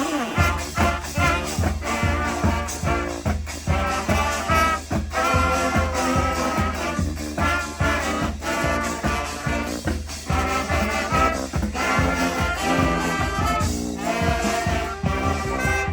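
Live brass band playing an instrumental tune, trombones and trumpets over a steady beat.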